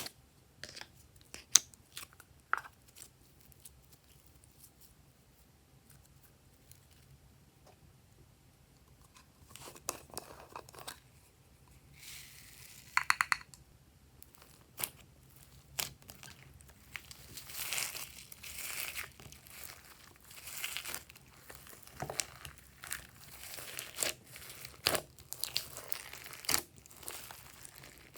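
Glossy slime being kneaded and stretched by hand: irregular sticky clicks and small air-pocket pops, sparse at first, with a quick run of pops about halfway and denser crackling through the second half.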